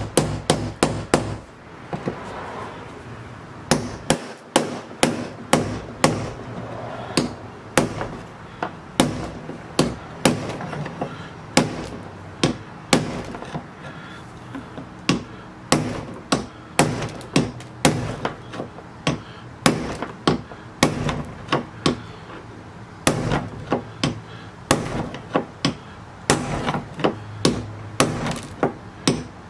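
Hammer blows on a screwdriver set against the rusted steel locking ring of a fuel sending unit, knocking the rust-stuck ring around to loosen it. Sharp metallic taps come about two a second, in runs with short pauses, over a low steady hum.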